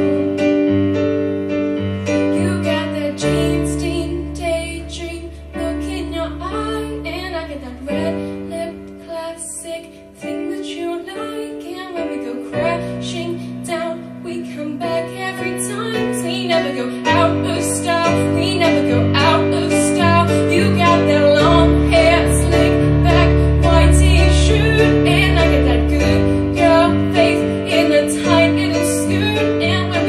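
A young woman singing into a microphone over piano accompaniment, the music swelling louder and fuller in the second half.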